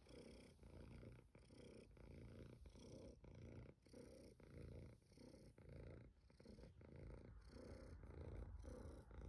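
Domestic tabby cat purring softly while being stroked, the purr coming in even pulses about twice a second.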